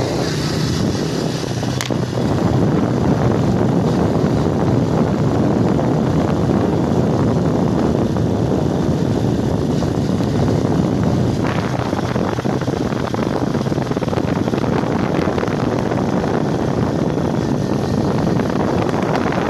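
Wind rushing steadily over the microphone of a moving kapchai (small underbone motorcycle), with the bike's engine running underneath.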